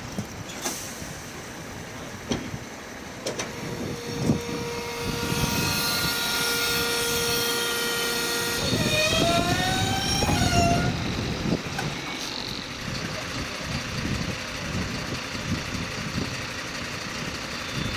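Truck-mounted crane's engine and hydraulics working. A steady whine holds one pitch for several seconds, then rises and falls for about two seconds as the engine speeds up, over a steady mechanical hum. A few knocks come in the first few seconds.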